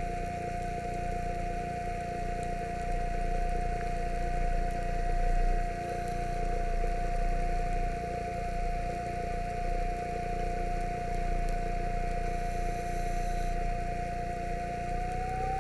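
Underwater scooter (diver propulsion vehicle) motor whining steadily over rushing water noise; near the end the whine steps up slightly in pitch.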